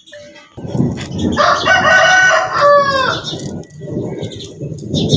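A rooster crowing once, about a second in: a long call that falls away at the end, over a low background rumble.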